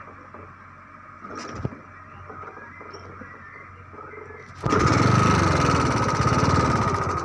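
Quiet background with a single knock, then about four and a half seconds in a small engine starts abruptly and runs loudly with a rapid, rough beat and a steady whine.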